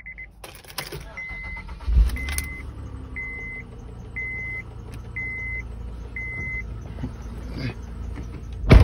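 A 2007 Honda Odyssey's 3.5-litre V6 catches on a cold first start about two seconds in, then idles steadily. A dashboard chime beeps about once a second for the first several seconds, and a sharp click sounds near the end.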